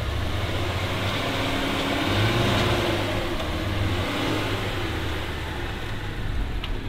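Honda Passport's 3.5-litre V6 running under light throttle as the SUV crawls over rocks. The engine note rises a little about two seconds in, then eases off.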